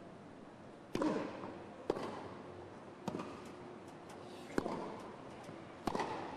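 Tennis ball being struck by rackets and bouncing on the court: five sharp knocks spaced about one to one and a half seconds apart.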